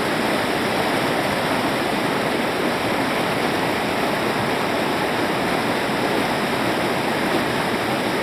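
Steady rushing of river rapids pouring between boulders.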